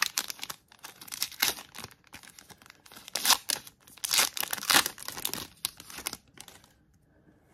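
Plastic wrapper of a trading-card pack being torn open and crinkled by hand, in irregular bursts that are loudest in the middle and stop about a second before the end.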